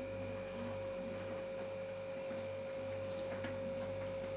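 A steady high-pitched hum, one held tone that does not change, with a few faint soft ticks and rustles of hands scattering chopped onions over the dough.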